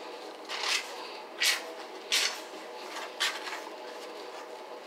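Four short squirting hisses from a Dark & Lovely hair-dye applicator bottle squeezed with its nozzle pressed into the hair at the roots, spaced about a second apart.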